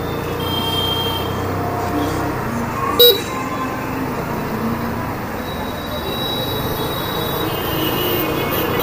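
Hero Destini 125 FI scooter's single-cylinder engine running steadily while riding through street traffic, with a short, loud vehicle horn toot about three seconds in.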